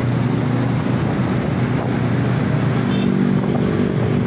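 Road traffic: a vehicle engine running with a steady low drone, a faint steady tone joining in about three seconds in.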